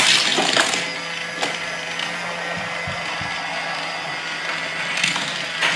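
Small electric motor of a Thomas & Friends Minis Motorized Raceway play set running with a steady whir as it carries the mini engines up the track, with a couple of light plastic clicks early on.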